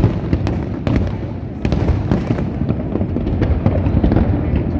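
Fireworks display: a rapid run of sharp shell bursts and crackles, several a second, over a continuous low rumble of booms.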